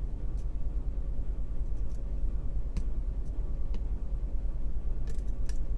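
A steady low rumble with a few faint, scattered clicks from a hook pick working the pins inside a pin-tumbler lock.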